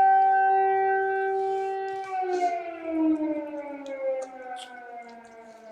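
Air-raid siren sounding a steady tone; about two seconds in, its pitch starts falling and it fades away steadily.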